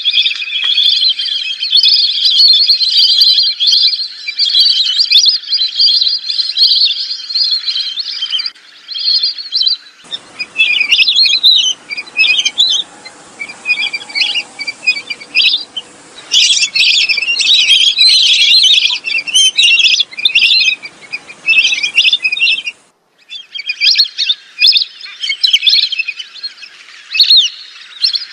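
Flock of lesser whistling ducks calling: a dense, continuous stream of high, shrill whistled calls from several birds overlapping. The recording cuts abruptly to a different take about a third of the way in and again near the end.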